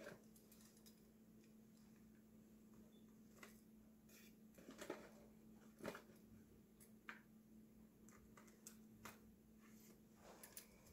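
Near silence over a faint steady hum, broken by a few soft, scattered clicks and rustles from a taped paper bag and a metal grabber tool being handled.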